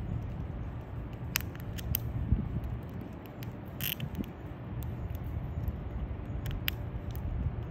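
Eastern gray squirrel gnawing a whole walnut in its shell: scattered sharp clicks and scrapes of teeth on the hard shell, a little longer near the middle, over a low steady background rumble.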